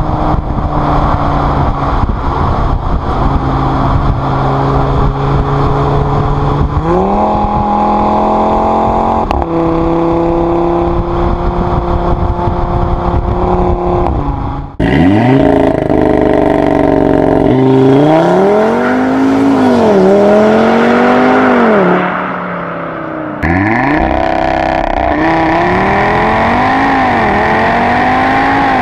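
Audi RS3's turbocharged 2.5-litre five-cylinder engine heard at the exhaust tailpipe while driving. It first runs steadily with its pitch slowly falling. About seven seconds in the revs climb. From about halfway it revs up and eases off in a series of rising and falling sweeps, with sudden cuts between passages.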